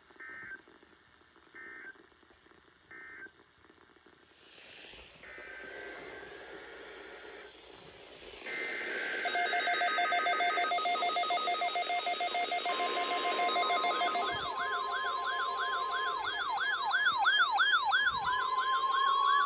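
Emergency-alert audio: three short two-pitched electronic data bursts about 1.3 seconds apart, like EAS SAME header tones, then from about eight seconds in a loud build of layered steady electronic tones and fast-warbling siren-like sweeps.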